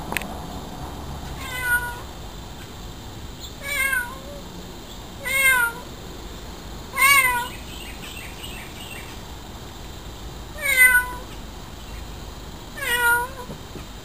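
Domestic cat meowing six times, each meow short and bending in pitch, a couple of seconds apart.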